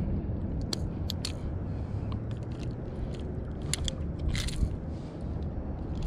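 Metal fishing pliers clicking and scraping against the treble hooks of a hard topwater lure as they are worked out of a bass's mouth: a scatter of sharp clicks around one second in and again near four seconds in, with a longer scrape just after, over a low rumble.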